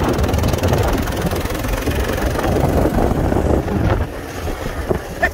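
Low, steady rumbling of wind buffeting the phone's microphone, with fabric rubbing over the microphone as the phone is held against clothing.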